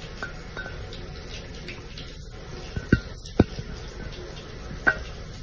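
Bathroom sink tap running, a steady stream of water into the basin. Three sharp knocks cut through it, two about three seconds in and one near the end.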